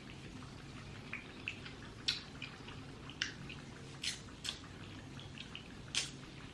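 Close-miked eating sounds: soft wet ticks of chewing with about five sharper, louder smacks of lips and mouth on seafood boil.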